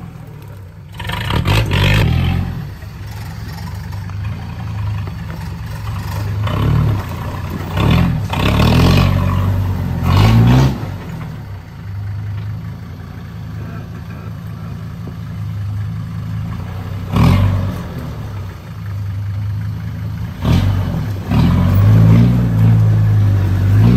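Off-road Jeep engine running at low revs as it crawls over rough ground, with repeated bursts of revving, the longest and loudest near the end.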